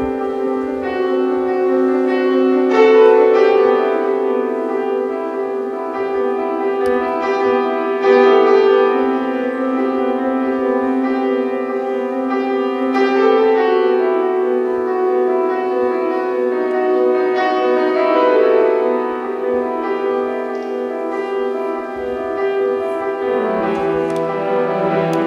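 Slow classical-style piano music with long held notes; a lower bass line comes in near the end.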